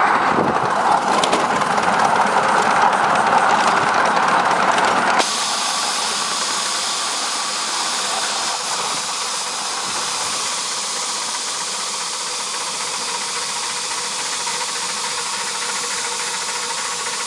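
Live-steam ridable-scale locomotive running with steam hissing: a loud rushing noise for about the first five seconds, then an abrupt change to a steadier, higher, slightly quieter hiss.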